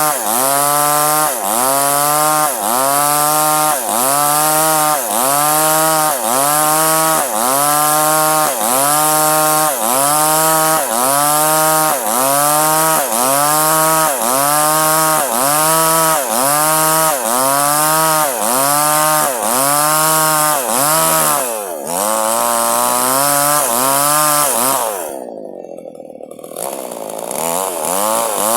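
Small chainsaw cutting durian wood, its engine pitch sagging and recovering over and over, a little more than once a second, as the chain bites in the cut. Near the end the engine drops low and quiet, then revs back up.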